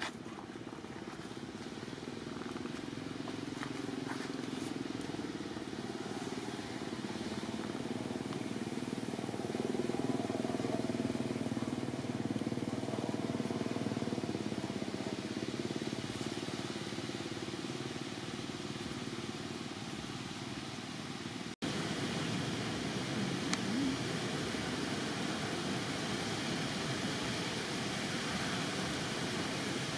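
Steady outdoor background noise with a low rumble that swells through the middle. It drops out for an instant about two-thirds of the way through, then carries on steadier.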